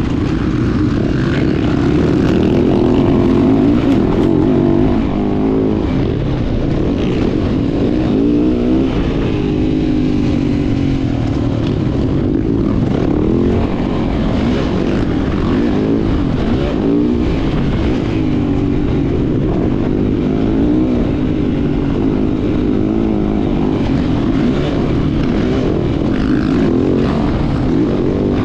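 Yamaha motocross bike engine revving hard and easing off again and again as it is ridden around a dirt track, its pitch rising and falling continuously, heard up close from a camera mounted on the rider.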